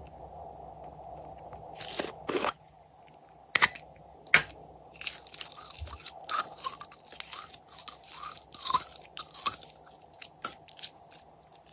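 Glossy slime pulled out of a small plastic container and stretched by hand, making a dense run of sticky crackling and popping sounds. A few sharp plastic clicks come earlier, about two to four seconds in, as the container is opened.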